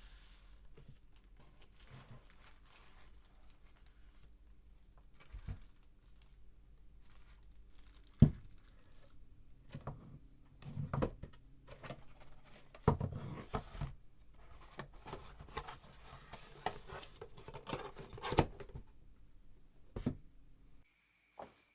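A Bluetooth speaker's retail packaging being handled and opened by hand: irregular rustling and tearing with scattered sharp knocks, the sharpest about eight seconds in. It cuts off abruptly near the end.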